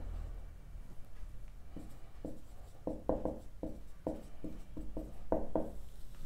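Marker pen scratching and squeaking on a whiteboard in a quick run of short strokes as a heading is written and underlined.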